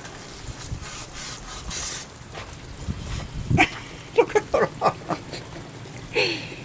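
A dog giving a string of short barks between about three and a half and five seconds in, and one more falling call near the end.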